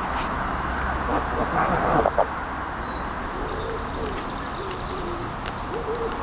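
Geese making soft, low calls while feeding, a string of short murmured notes from about three seconds in. A couple of sharp clicks come about two seconds in.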